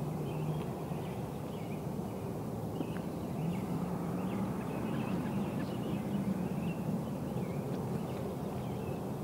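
Outdoor ambience of small birds chirping in short, repeated calls over a steady low rumble and hum.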